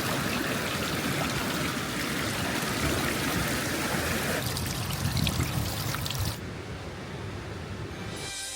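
Running water of a stream, a steady rush without any distinct events. A little over six seconds in, the sound turns duller and quieter.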